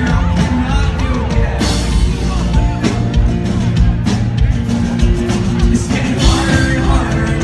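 Live rock band playing the song at full volume, a loud full-band mix of drums and guitars, with big crashes about one and a half seconds in and again near the end.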